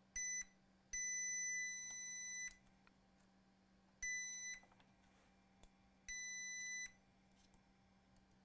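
Digital multimeter beeping in four uneven steady beeps, one short, one about a second and a half long, then two shorter ones, as the probes touch capacitors on an iPad logic board. It beeps because the battery is still connected while measuring in diode mode.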